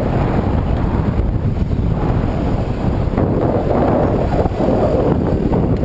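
Wind buffeting a bicycle-mounted camera's microphone while riding, a steady low rumbling rush, with the sound of traffic, including a tour trolley driving close alongside.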